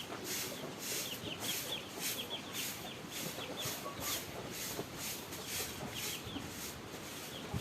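Chickens peeping in many short, high, falling chirps, over a high hiss that pulses about two to three times a second.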